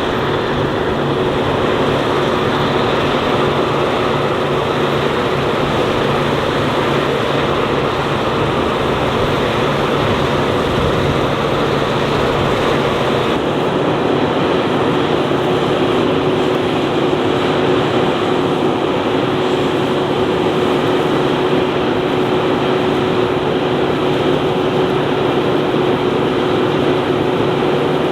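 Heavy farm machinery running steadily, with a held whine through its noise that grows stronger about halfway through.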